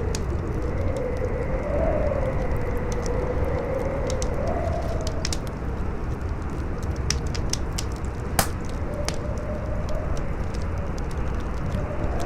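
Wind howling in a wavering tone that rises and falls over a steady rush, with a fire crackling throughout in scattered sharp pops. One loud pop comes about eight seconds in.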